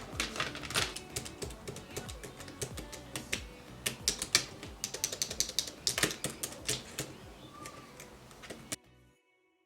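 Typing on a mini wireless Bluetooth keyboard: a quick, irregular run of key clicks over soft background music, cutting off suddenly near the end.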